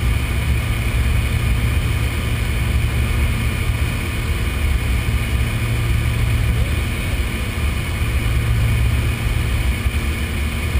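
Light aircraft's engine droning steadily in flight, heard from inside the cabin.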